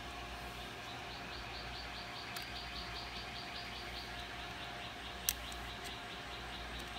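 Faint, even high-pitched chirping, about five chirps a second, over a steady faint hum, with one sharp small click about five seconds in.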